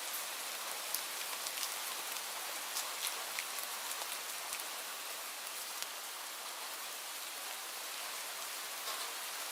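Light rain falling steadily: an even hiss with scattered individual drop ticks.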